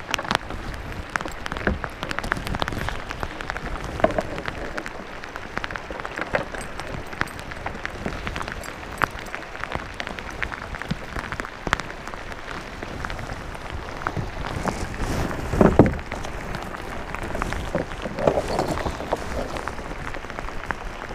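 Heavy rain falling on the lake and the kayak, a dense steady patter of drops, with one louder knock about three-quarters of the way through.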